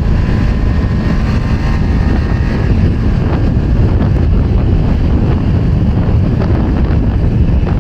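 Wind rushing over the microphone while riding a Kawasaki Ninja 400 on its stock exhaust, with the parallel-twin engine's quiet note faint underneath.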